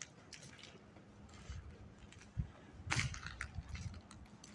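Footsteps crunching on a gritty factory floor over a faint low rumble, with a dull thump about two and a half seconds in and a louder crunch just after.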